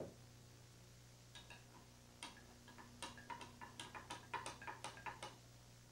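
Steady low electrical hum and faint hiss from a blank VHS tape playing back. A soft thump right at the start, then a run of sharp, irregular clicks from about a second in that quickens to about five a second and stops near the end.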